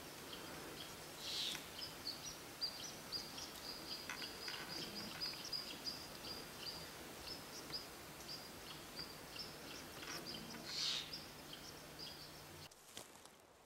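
Faint small-bird chirping: a long run of short, high chirps, with two louder calls about a second in and near the end.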